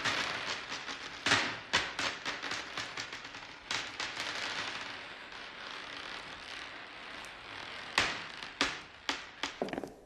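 Glass marbles dropping onto a wooden plank floor, clicking and bouncing, then rattling and rolling as the bounces thin out. A few louder, sharper knocks come near the end.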